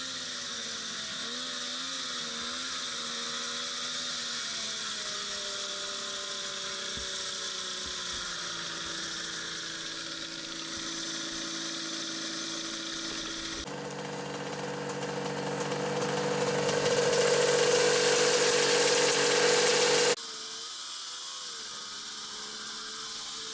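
Snowmobile engine running: its note wavers, then falls and settles as the sled slows. About two thirds of the way through it changes suddenly to a louder, steady engine note that grows louder for several seconds, then drops back abruptly to a quieter running sound.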